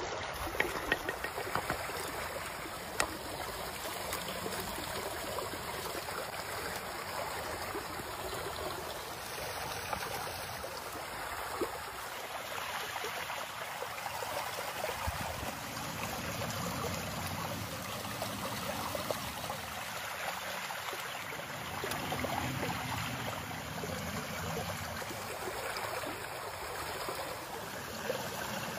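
Shallow stream running over rocks, a steady rushing and burbling of water, with a few light clicks in the first three seconds.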